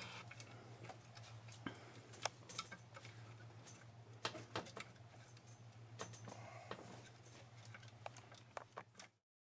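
Faint scattered clicks and light taps, parts and tools being handled in an engine bay, over a low steady hum; the sound cuts off about nine seconds in.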